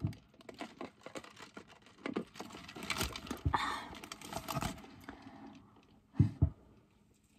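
Small handling noises while drinking soda through a straw from a plastic cup over fast-food paper wrappers: scattered clicks and rustles, busiest around the middle. Near the end there are two dull thumps close together.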